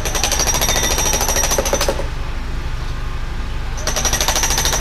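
Hydraulic hammer on a mini excavator pounding a steel pipe pier down into the ground in rapid, even blows. It stops about two seconds in and starts again near the end, over the steady drone of the excavator's engine.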